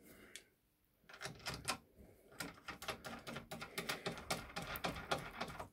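A quick run of small metal clicks, starting about a second in and growing denser, as a knurled hollow-point pin is fitted and threaded into the die of a Corbin swage press.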